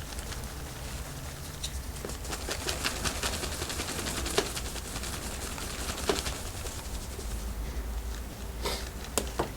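Hands rubbing and working over skin during a massage: soft friction with a scatter of small clicks, and a few sharper clicks about four and six seconds in and again near the end.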